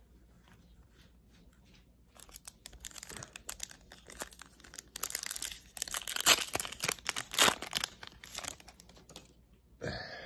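Foil wrapper of a Panini Mosaic trading-card pack being torn open by hand and crinkled. A run of tearing and crackling starts about two seconds in and lasts several seconds, loudest in the middle.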